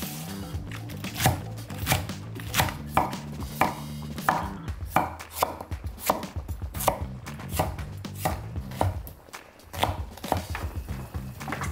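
Chef's knife chopping vegetables (green onion, potato, radish) on an end-grain wooden cutting board: a string of sharp knocks, about two a second, with a short pause near the end.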